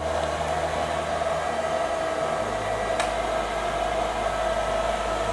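A blow dryer running steadily on a dog's coat: an even rushing blast with a steady hum through it. A single sharp click about three seconds in.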